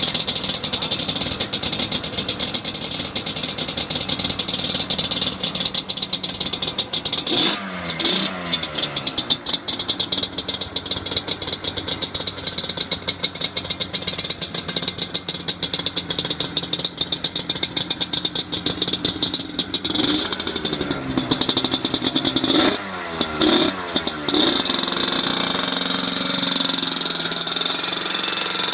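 Yamaha Banshee's two-stroke parallel-twin engine running on its first start after a rebuild, with a fast crackling beat. It is revved up and back down about a quarter of the way in and again several times near the three-quarter mark, then settles into a smoother, steady run.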